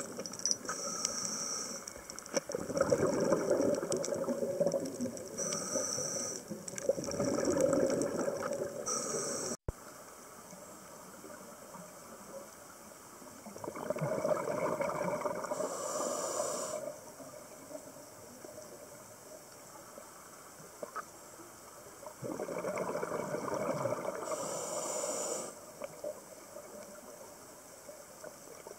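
Scuba diver breathing through a regulator underwater: bursts of bubbling and hiss every several seconds, with quieter water noise between them. The sound cuts out for an instant about a third of the way in.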